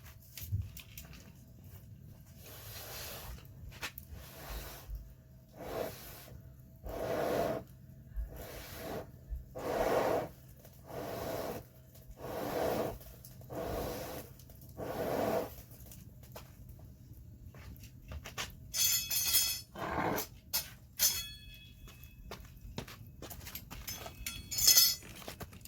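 Wood fire crackling in a fire pit, with a series of dull, muffled sounds about every second or so, and a few sharp, ringing clinks near the end.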